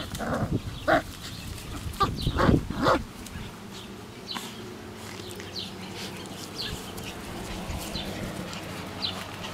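Puppy growling and grunting in several short bursts while tugging at a sock, over the first three seconds. After that, birds chirp softly and repeatedly in the background.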